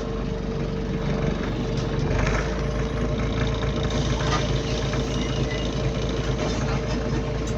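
Bus running, heard from inside the passenger cabin: a steady low rumble with a steady hum and a few scattered rattles.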